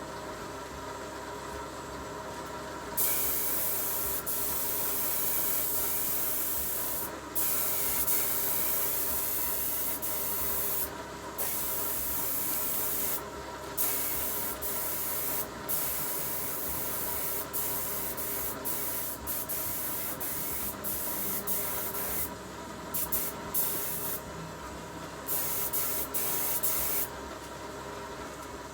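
A power tool working on bare sheet metal: a loud hissing that starts and stops many times, in spells of one to four seconds, over a steady machine hum.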